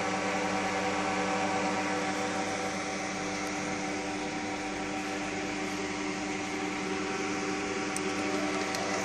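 Streamfeeder friction feeder and its belt conveyor running as they feed flat folding cartons, a steady motor hum with several held tones over an even whir.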